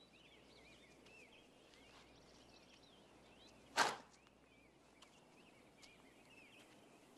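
Birds chirping softly in the background, then a single sharp swish of a high martial-arts kick cutting the air about four seconds in.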